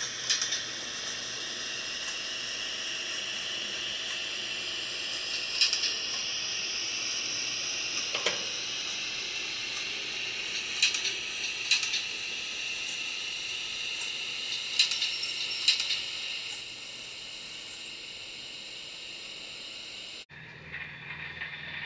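Model railway locomotive running: a steady hiss with a faint whine slowly falling in pitch, broken by several sharp metallic clicks.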